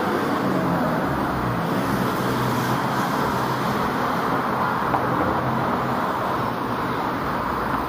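Steady road traffic: motor vehicles running along a busy street, with a low engine hum under the tyre and road noise.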